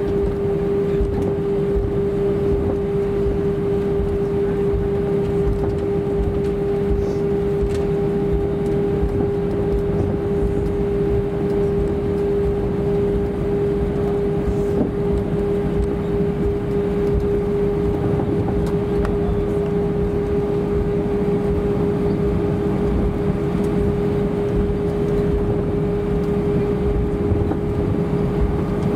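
Steady cabin noise inside an Airbus A320-232 taxiing on its IAE V2500 engines at idle: a constant low rumble with one steady hum held over it.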